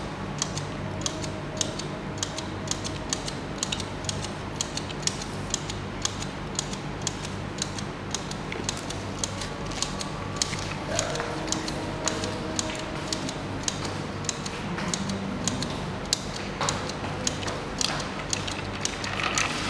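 Mechanical timer ticking steadily, about two to three ticks a second, over a low steady hum, as it counts down a one-minute count.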